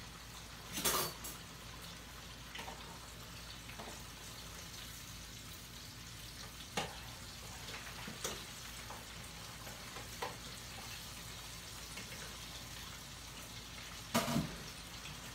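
Breaded catfish frying in oil in a deep fryer, a steady sizzle. Several sharp knocks sound over it, the loudest about a second in and near the end.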